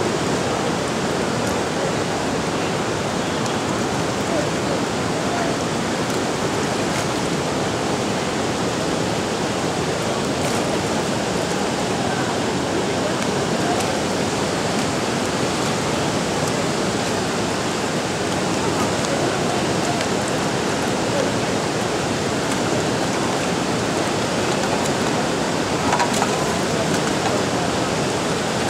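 Steady rushing of fast-flowing river water, an even wash of noise with no breaks.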